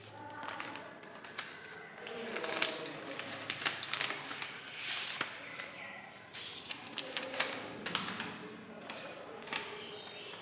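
Indistinct background voices with scattered sharp clicks and taps, like objects being handled and set down in a room.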